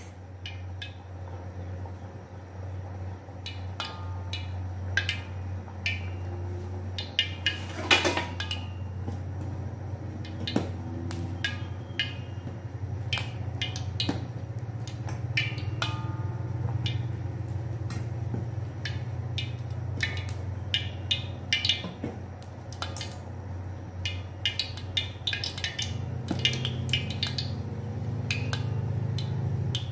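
Water droplets sputtering in a wok of heating cooking oil: scattered, irregular pops and crackles over a steady low hum. The popping is sparse, the sign that the oil is not yet hot enough for frying.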